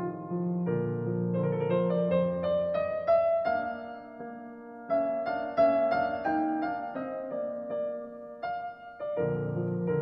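Piano music: a melody that climbs in steps over low chords.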